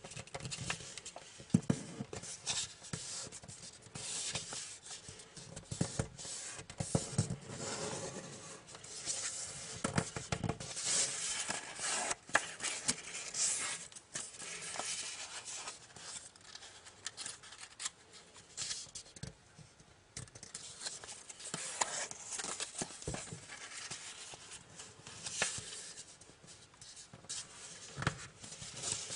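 A square of origami paper being folded by hand: irregular rustling and crinkling, with short sharp scraping strokes as fingers press and run along the creases.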